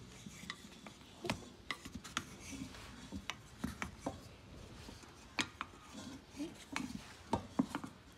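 Wooden spatula scraping and knocking against the inside of a stainless steel pot as it pries freshly steamed buns loose from the pot wall: a string of irregular clicks and taps with soft scraping between them.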